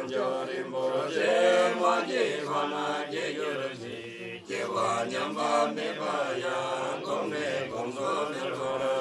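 A group of Buddhist monks chanting prayers together in deep male voices, with a brief pause for breath about four seconds in.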